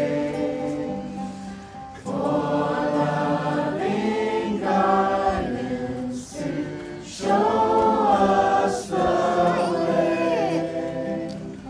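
A group of people singing together, in phrases of a couple of seconds with short breaks between them.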